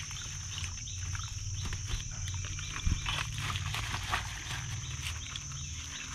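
Tap water running from a garden hose into a plastic bag, with the thin plastic crinkling and rustling in frequent short crackles. There is a single sharp knock about three seconds in, and a steady high drone in the background.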